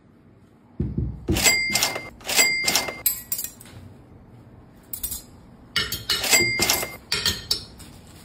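A plate set down on a table with a low thud, then groups of sharp clinks of a metal knife and fork against a ceramic plate, several ringing briefly.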